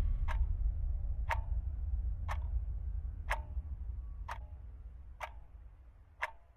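A clock ticking about once a second, seven ticks in all, over a low drone that fades away toward the end.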